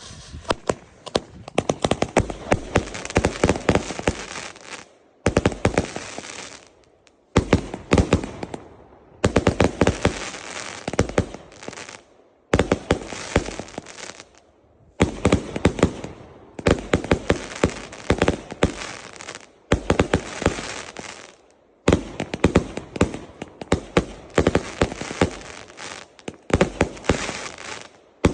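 Iskra 'Godny' firework going off with dense, rapid crackling bangs. The bangs come in runs of a few seconds that start and stop abruptly, with short breaks between them.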